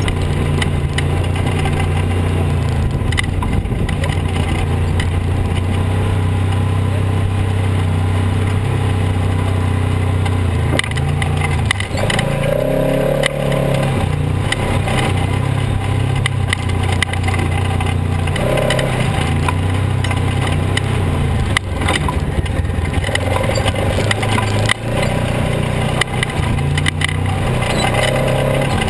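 Polaris RZR XP 900 side-by-side's parallel-twin engine running steadily as it drives over a rocky dirt trail, with scattered knocks and rattles from the chassis. About halfway through, the engine note briefly eases off before picking up again.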